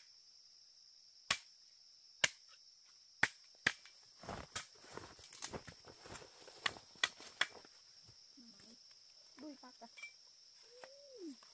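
Steady high chirring of crickets, with several sharp knocks, a few seconds of rustling clatter in the middle, and a short falling cry near the end.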